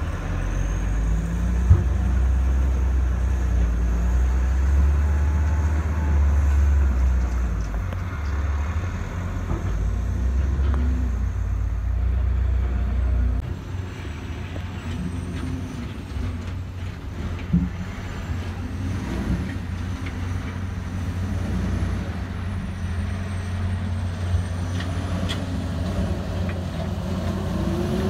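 Heavy diesel dump-truck engines running: a deep steady rumble while a tipper raises its bed. After a sudden drop in level about 13 seconds in, a truck engine works as the truck climbs a dirt slope, its pitch rising and falling. A couple of short sharp knocks stand out.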